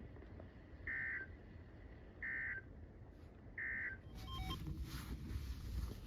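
EAS/SAME end-of-message data bursts: three short, harsh two-tone digital bursts about 1.4 seconds apart, marking the end of the severe thunderstorm warning broadcast. Radio hiss follows for the last couple of seconds.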